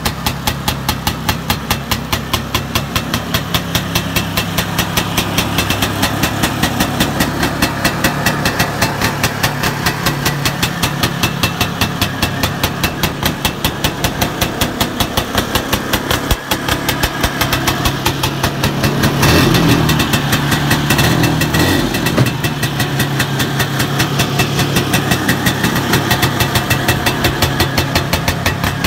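1969 Arctic Cat Panther's Sachs 297 cc two-stroke engine idling with a steady, regular pulse. About two-thirds of the way through it is revved briefly for a few seconds, then settles back to idle.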